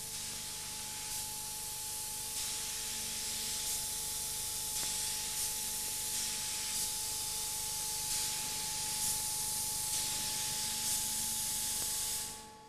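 Steady hiss of a paint-spraying robot's spray gun atomising paint, with a faint steady hum underneath and slight swells about every second and a quarter; it fades out just before the end.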